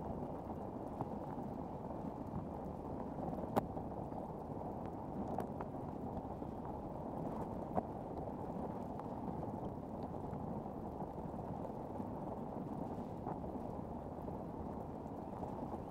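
Steady, muffled wash of water along a kayak's hull as it is paddled across calm water. Two sharp clicks stand out, one about three and a half seconds in and one near eight seconds.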